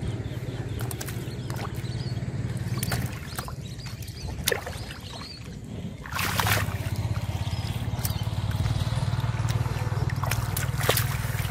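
A steady low motor hum that fades about three seconds in and comes back about three seconds later, over small splashes and squelches of hands grabbing fish in shallow muddy water.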